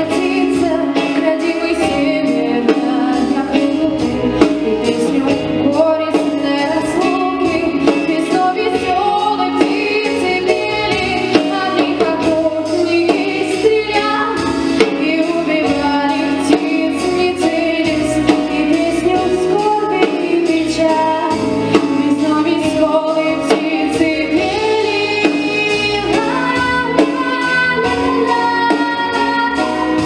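A young girl's solo voice singing a slow melody into a microphone, over instrumental accompaniment with a steady beat.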